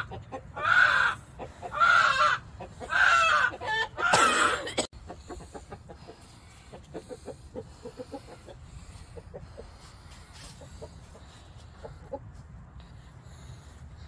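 Chicken squawking loudly about once a second, five times, then cut off abruptly about five seconds in; quieter short clucks follow.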